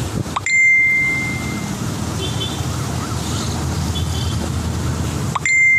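Steady rushing noise of wind and floodwater on a phone microphone. It is broken twice, near the start and near the end, by a brief dropout, a quick rising chirp and a single high steady beep lasting about a second.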